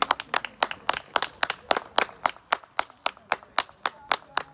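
One person's hand clapping close by, steady and rhythmic at about four claps a second.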